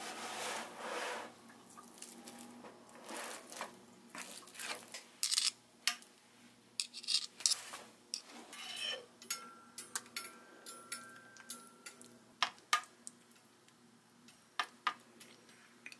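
Cooked sweet potatoes being mashed in a round metal cake tin with a metal masher: irregular clinks and scrapes of metal on the tin, with soft squishing.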